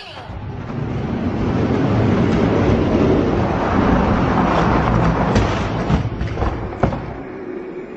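Die-cast toy monster trucks rolling down a plastic drag-race track: a rumble of wheels on the track that swells and then eases off, with a few sharp clacks about five to seven seconds in as the trucks reach the finish and one tumbles.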